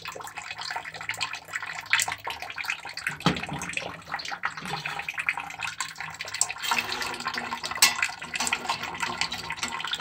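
Water running from a newly installed steam boiler's skim tapping into a metal bucket as the boiler is drained of its oily residue, with scattered metal clicks and knocks from tools on the pipe fittings.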